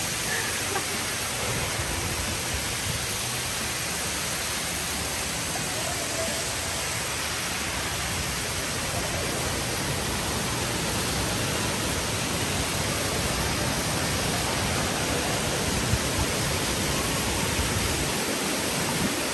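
Hot tub water jets churning the water, a steady, even rush.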